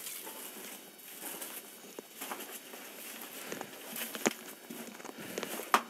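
Footsteps crunching through dry grass and weeds, with scattered sharp crackles of dry stalks underfoot; the loudest snap comes near the end.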